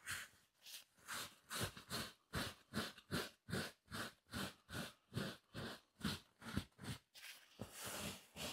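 Tissue rubbing back and forth over a leather sofa cushion, a soft brushing stroke about three times a second, wiping over a freshly repaired crack.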